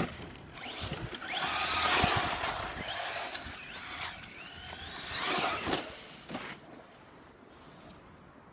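Electric remote-control car's motor whining and its tyres scrabbling as it is driven hard in two bursts, about a second in and again around five seconds in, with a rising whine between them. A sharp click right at the start.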